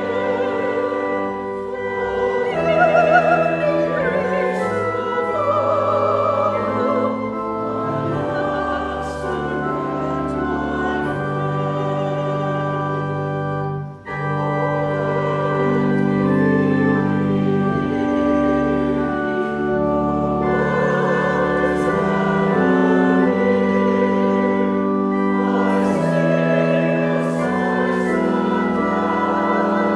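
Choir and congregation singing a hymn with church organ accompaniment, in long held notes; the music breaks off for a moment about halfway through, as between verses, then carries on.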